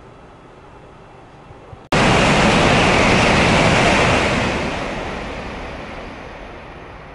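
Shinkansen high-speed train passing through the station at speed: a loud, even rushing roar that cuts in abruptly about two seconds in, holds for a couple of seconds, then fades away as the train goes by.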